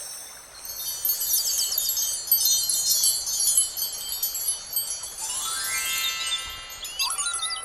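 Cartoon magic sparkle sound effects: a dense shimmer of high, tinkling chime tones, with a rising sweep of tones about five seconds in.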